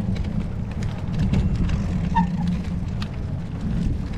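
Wind buffeting the microphone on a moving bicycle: a dense low rumble, with small clicks and rattles throughout and a short high chirp about two seconds in.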